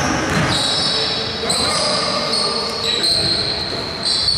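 A basketball being dribbled on a hardwood gym floor, with high-pitched sneaker squeaks coming and going from about half a second in, and players' voices in the background.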